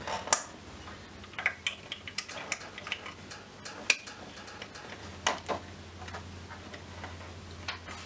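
Small steel parts of a Scott Bonnar 45 mower's clutch fork assembly clicking and clinking irregularly as a pivot shaft is threaded through the fork, its coil spring and the bracket holes by hand. The sharpest clicks come just after the start and about four seconds in.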